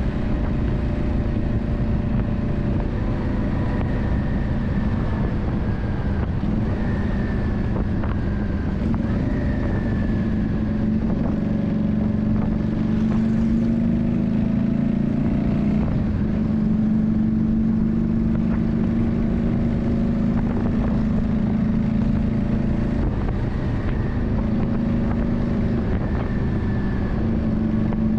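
Yamaha Drag Star 400's air-cooled V-twin engine running steadily, its pitch drifting up and down a little, over a steady rushing noise.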